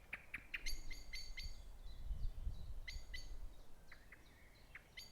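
A small songbird singing: quick runs of short, high chirps in repeated phrases. A soft low rumble is heard around the middle.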